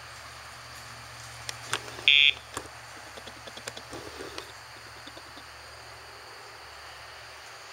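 One short electronic buzz from the e-collar's sound box about two seconds in, the audible signal that the Dogtra collar's pager is being pressed to cue the dog's turn. A few sharp clicks and faint ticks come around it.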